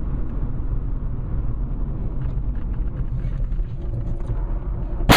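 Steady low rumble of a car driving on the road, engine and tyre noise as picked up by a dashboard camera. A sudden loud impact comes right at the very end.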